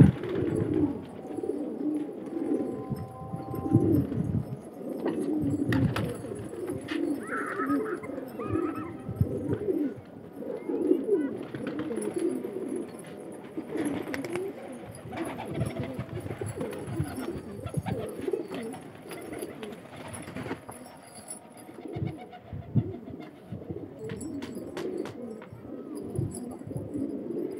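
A flock of domestic pigeons cooing continuously, many low coos overlapping one another.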